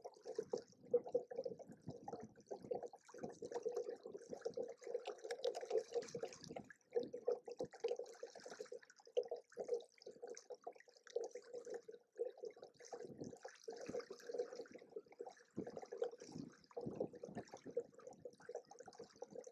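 Water sloshing and splashing in choppy, uneven surges.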